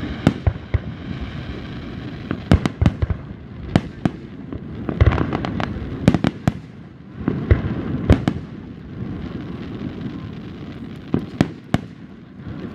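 Aerial fireworks shells bursting, with many sharp bangs at irregular intervals, several coming in quick clusters, over a steady background noise between them.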